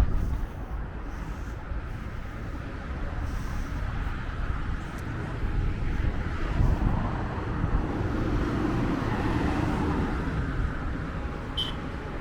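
Steady rumble of road traffic, swelling slightly about halfway through.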